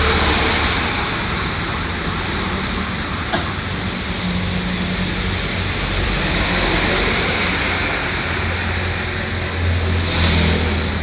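Road traffic on a rain-soaked road: a bus's engine drone and the hiss of its tyres on wet asphalt at the start, under a steady hiss of rain. Another vehicle swishes past about ten seconds in.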